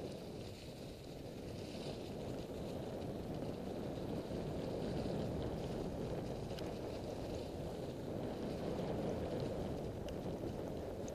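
Mountain bike riding over a leaf-strewn dirt trail: a steady rumble of tyres on leaves and earth mixed with wind buffeting the camera microphone, getting a little louder a few seconds in, with a couple of faint clicks.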